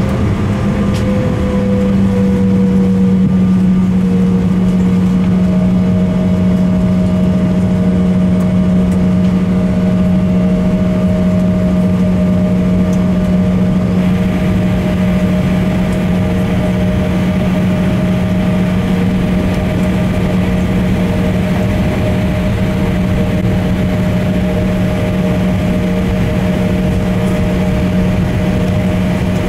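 Cabin noise of an Embraer E170 taxiing, heard from a seat over the wing: the steady drone of its GE CF34 turbofans at low taxi power over airflow hiss. Higher whining tones ride on the hum, one dipping slightly in pitch in the first few seconds and another coming in soon after.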